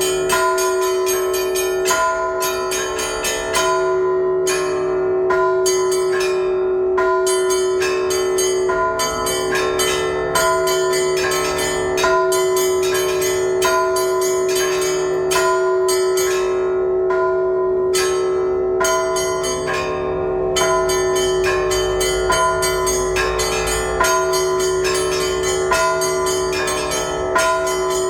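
Orthodox church bells ringing a continuous peal. Smaller bells are struck in a quick, dense pattern over the steady, lingering hum of a larger bell.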